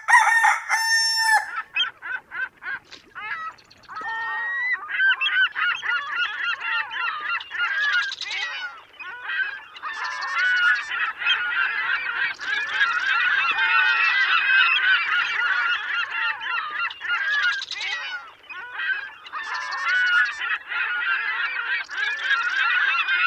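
A large flock of birds calling together, a dense chorus of many overlapping short calls, steady from a few seconds in.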